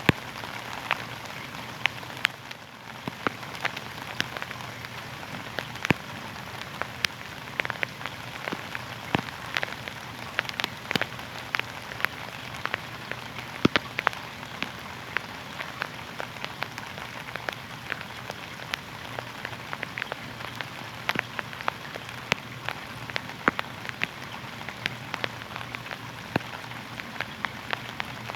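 Steady rain, a constant hiss with many irregular sharp ticks of single drops striking a hard surface.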